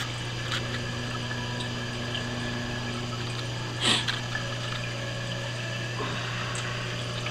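Reef aquarium system running: a steady pump hum under the hiss of circulating water, with a short tap about four seconds in.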